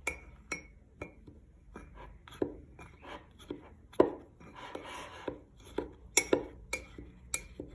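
A utensil knocking and scraping against a mixing bowl in an irregular run of sharp clicks, while dry ingredients (flour, salt and baking powder) are stirred together, with a brief scraping stretch a little past halfway.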